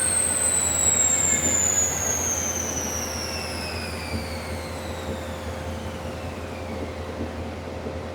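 A 2019 Mustang Bullitt's drivetrain and the chassis dyno roller coasting down after a pull: a high whine that falls steadily in pitch and fades, over a steady low hum.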